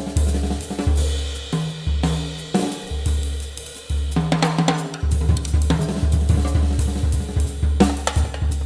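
Drum kit played in a solo, with snare, bass drum, hi-hat and cymbal hits in quick succession over deep low notes that ring between the strokes.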